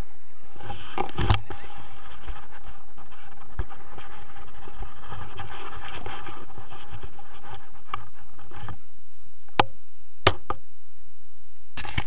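Wind buffeting the camera's microphone in paraglider flight, a steady rumbling rush that thins out after about nine seconds as the landing comes. Then a few sharp knocks, with a cluster near the end.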